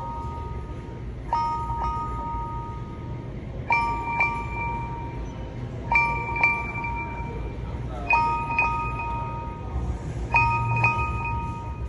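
Google Pixel 7 ringtone playing: a bell-like chime figure of two quick strikes that repeats about every two seconds, its upper note changing between repeats.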